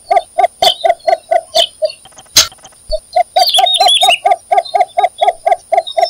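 Cinnamon bittern calling: a fast series of short low notes, about five a second, that breaks off about two seconds in and picks up again about a second later.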